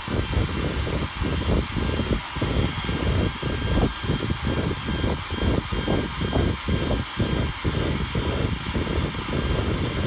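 Foppapedretti cordless stick vacuum running on its lowest power setting with a steady high motor whine. The crevice tool's brush is scrubbed back and forth on car carpet, so the suction rush dips and swells about twice a second.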